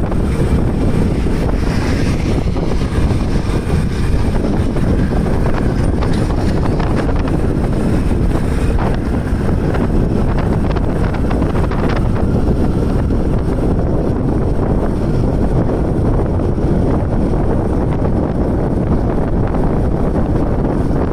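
Steady wind rush on the microphone of a scooter ridden at highway speed, with the scooter's running and road noise underneath.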